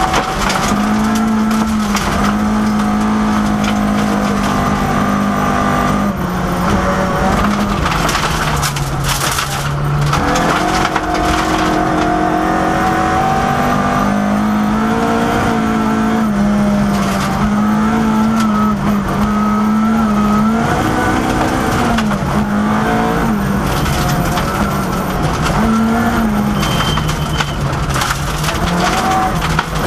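Ford Escort Mk II rally car's engine at full throttle, heard from inside the cabin, its pitch repeatedly dropping and climbing again with gear changes and lifts. About eight to ten seconds in there is a burst of rattling noise.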